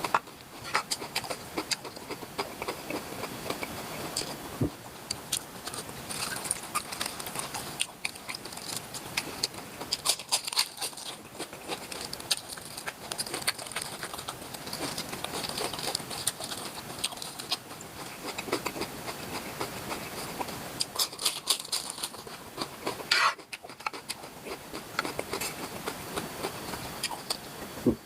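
A person chewing and smacking on mouthfuls of spicy cooked octopus, close up: a dense, steady run of small clicks and crackles.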